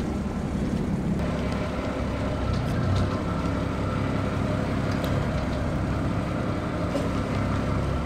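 Diesel engine of a Nippon Sharyo DH408 crawler pile driver running steadily, with a low, even hum.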